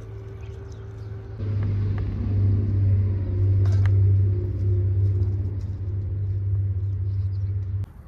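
Domestic cat purring steadily while being stroked: a low, pulsing rumble that gets louder about a second and a half in and cuts off just before the end.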